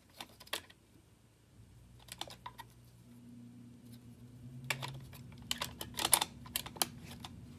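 Small toy lightsaber parts clicking and tapping as they are handled and fitted together by hand. The clicks come in irregular clusters, sparse at first and busier in the second half.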